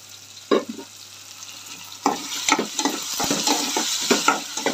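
A pot knocks as it is set down about half a second in. From about two seconds in, chopped onions, tomatoes and green chillies sizzle in hot oil in a pan, with the repeated scrape of a spoon stirring them.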